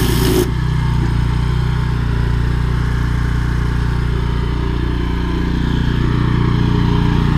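Drain-jetting machine's engine running steadily. A loud rushing hiss over it cuts off suddenly about half a second in, leaving the engine note on its own.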